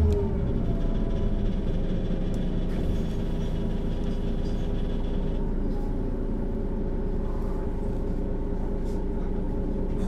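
Diesel engine of a Mercedes-Benz O 530 G Citaro articulated bus, its revs falling away right at the start and then running at a steady speed.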